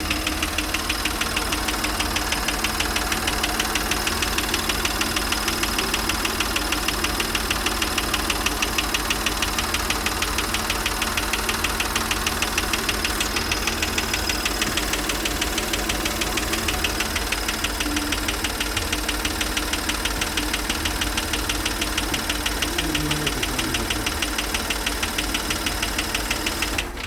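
Audi A6 C6's CCEA engine running steadily with a rapid, regular knock from inside the engine, even and unchanging throughout.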